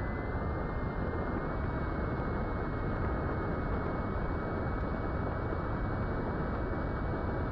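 Airflow rushing over the onboard camera of a small electric FPV plane in fast flight, with the thin, steady whine of its Brotherhobby Avenger 2808 brushless motor and 8-inch propeller. The whine steps up slightly in pitch twice in the first second and a half as the throttle is pushed up.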